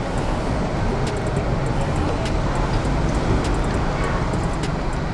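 Steady low rumble of vehicle engines and road traffic, with a few light clicks.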